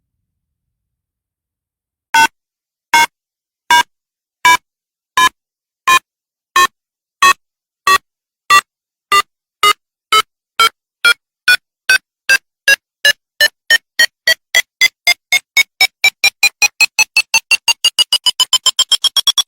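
Electronic countdown beeps that start about two seconds in, slow at first, then come faster and faster and climb in pitch until they almost merge into one tone near the end: a bomb-timer countdown building up to an explosion.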